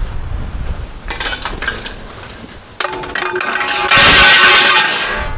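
Scrap metal clanking and scraping. A ringing tone starts suddenly about three seconds in, and the loudest scraping clatter comes about a second later.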